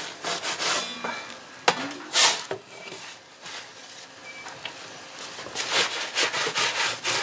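Metal pizza peel scraping and rasping over the oven's stone baking slab and steel shelf as pizzas are slid in and turned, in quick repeated strokes at the start and again near the end, with a sharp knock about one and a half seconds in.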